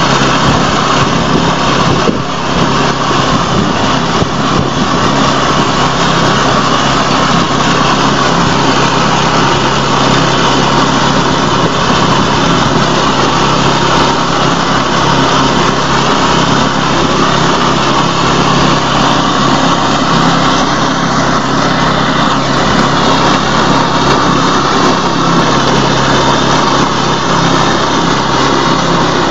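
Engine of a wheat and rice reaper machine running steadily at a constant speed.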